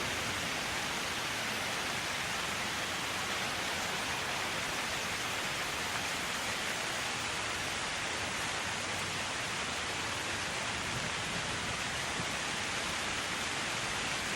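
Steady rain falling on leaves: a dense, even patter of drops that keeps a constant level throughout.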